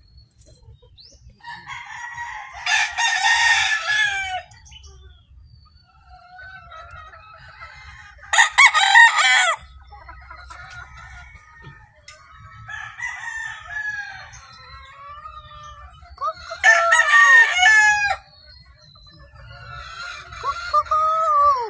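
A rooster crowing three times, about three, eight and seventeen seconds in, with hens clucking softly between the crows.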